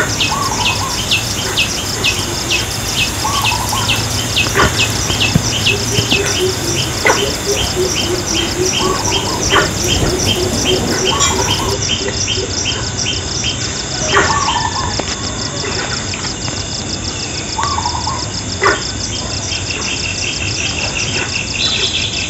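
Forest ambience of insects and birds: a steady high insect drone with a rapid chirping of about two or three chirps a second, and short bird calls every few seconds. A few sharp clicks sound here and there.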